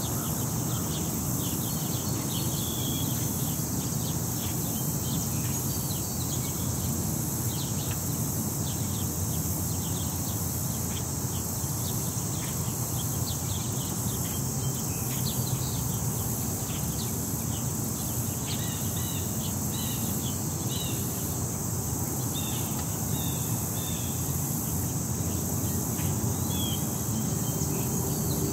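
City park ambience: a steady, shrill chorus of insects, with small birds chirping now and then over a low, steady rumble of city traffic.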